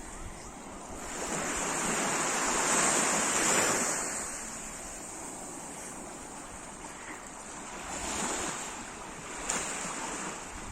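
Sea surf washing in: one big wave swells up and breaks about three seconds in, then fades. Smaller waves follow near the end.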